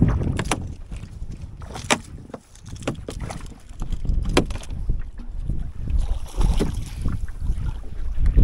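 Wind buffeting the camera's built-in microphone in an uneven low rumble, with a few sharp clicks and knocks, the strongest about two seconds and four and a half seconds in.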